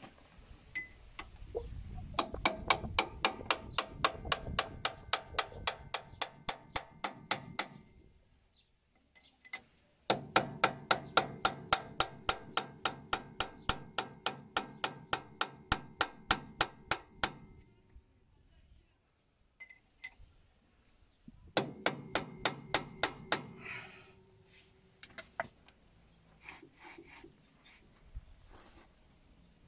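Hammer blows on the steel planetary ring gear of a Cat 434E backhoe loader's wheel hub, tapping it into place. There are three runs of ringing metallic strikes at about four to five a second, with short pauses between them, then a few lighter knocks near the end.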